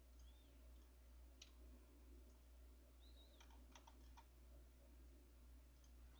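Faint clicking at a computer: one click about a second and a half in, then a quick run of several clicks a couple of seconds later, over a steady low hum.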